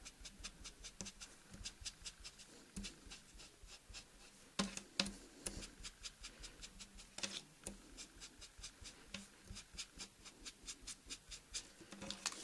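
Sponge loaded with dry pastel rubbed and dabbed along the edges of a foamiran leaf: a fast run of faint, soft scratchy strokes, several a second, with a few louder ones around the middle.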